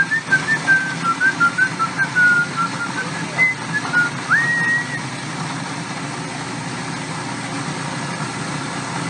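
Food processor motor running loudly and steadily, blending cashews, water and nutritional yeast into a cashew cheese sauce. Over the first five seconds or so a short tune is whistled above the motor noise.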